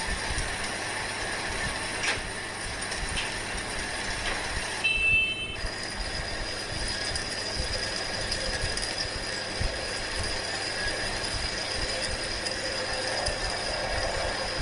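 Manual metal lathe running with a steady mechanical rattle and gear whine. About five seconds in there is a brief, louder high squeal, after which a thin steady high whine carries on.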